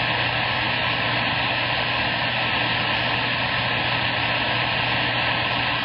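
CB radio speaker giving out loud, steady static hiss over a low hum, an open channel full of skip noise; it drops away suddenly near the end.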